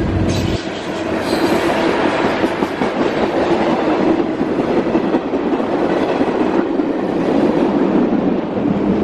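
Freight train cars rolling past: steady noise of steel wheels on rail from a long string of boxcars and tank cars.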